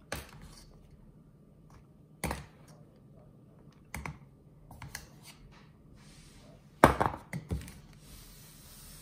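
Metal spoon clicking and knocking against a plastic cornstarch canister and a plastic measuring cup while cornstarch is scooped. The taps come singly every second or two, with the loudest cluster of knocks about seven seconds in.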